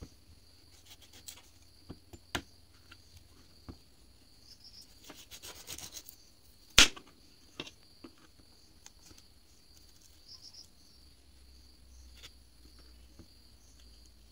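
Kitchen knife cutting and scraping the skin off a green vegetable, with scattered light clicks and rasps as the blade goes through and taps a plastic chopping board. One sharp, louder knock comes about halfway through.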